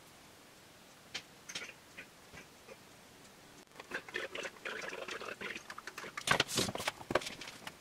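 Scattered light clicks and taps of small objects being handled, then from about halfway a busier run of clattering and rustling, loudest near the end.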